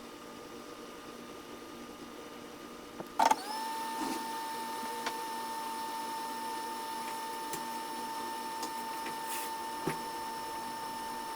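A small electric motor switches on with a click about three seconds in, spins up quickly and settles into a steady whine, with a few light clicks after it.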